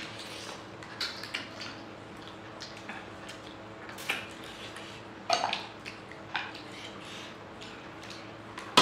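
Two people eating mutton curry and rice pancakes with their fingers: scattered short smacks and clicks of chewing and lip-smacking, with fingers working food on disposable plates. A faint steady hum sits underneath.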